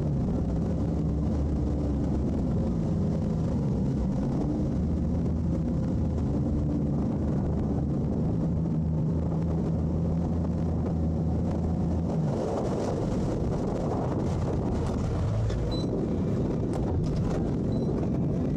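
Twin Suzuki outboard motors running hard under load, pulling on a tow line to free a grounded boat, their props churning the water. About twelve seconds in, the steady engine note drops away and an even noise of engine and water takes over.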